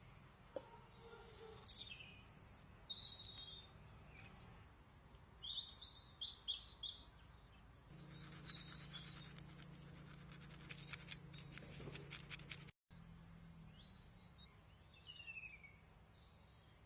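Small birds chirping and calling, many short whistled notes sliding up and down in pitch. From about eight to twelve seconds a rapid rattle of clicks runs under them with a low steady hum.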